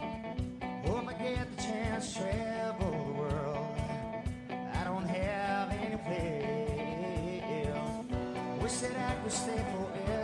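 Live rock band playing: electric guitars over a steady drum beat with cymbals, the melody line bending and wavering in pitch.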